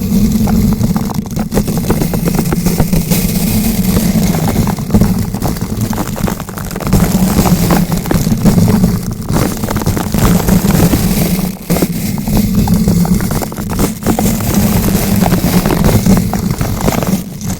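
Bristle brush rotated against a bare microphone: loud, dense scratching and crackling with a low rumble, pausing briefly a few times.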